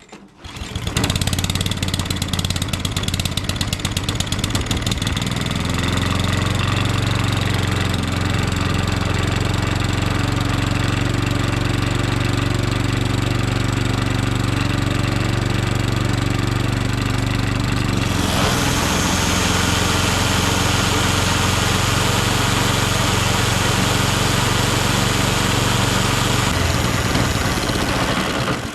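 Allett 10-blade cylinder mower running with its cutting cylinder spinning against a sharpening strip on the bottom blade, grinding the blades to take out small burrs. It starts about half a second in, runs steadily, turns hissier about two-thirds of the way through, and stops just before the end.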